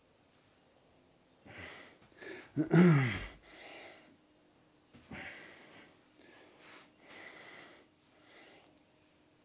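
A man breathing hard from exertion during an exercise: a string of short, forceful exhales, with one loud groan falling in pitch about three seconds in.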